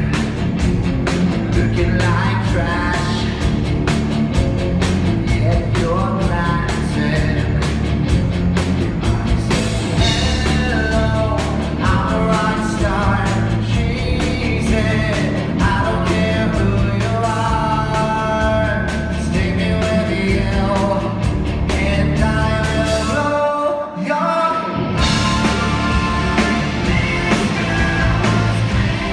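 Rock music with a singer over drums, bass and guitar; the bass and drums drop out briefly near the end before the band comes back in.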